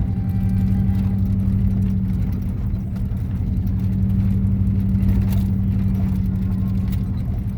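Engine of the vehicle he is driving, running at a steady pace with a constant low hum, heard from on board.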